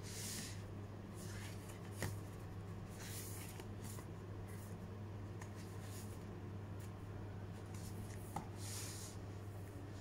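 Paper menus rustling as they are handled and their pages flipped, in several short bursts, with a couple of light knocks against the desk. A steady low hum runs underneath.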